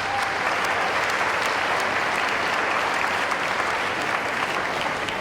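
An audience clapping in a hall, a steady round of applause for a person just named. It begins just before and eases off slightly near the end.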